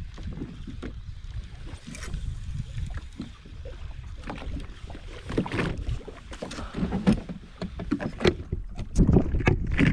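Water slapping and knocking against the hull of a jet ski, over a rough, uneven low rumble; the slaps come thicker and louder in the second half.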